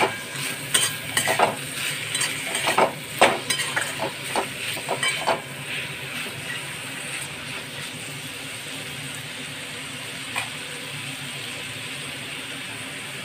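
A spatula scrapes and clatters against a pan as strips of pointed gourd are stirred in hot oil over a steady sizzle. About five seconds in the stirring stops and only the sizzle goes on, with one more click about ten seconds in.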